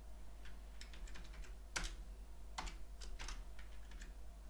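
Computer keyboard typing: a string of uneven key clicks, two of them louder near the middle.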